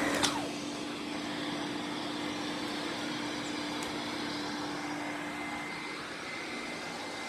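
Sebo Felix vacuum cleaner running steadily with a motor hum. Just after the start a click is followed by a quick falling tone, and the sound drops slightly in level.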